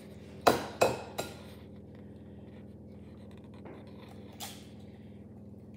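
An egg knocked three times in quick succession against the rim of a mixing bowl to crack its shell, followed a few seconds later by a single fainter click.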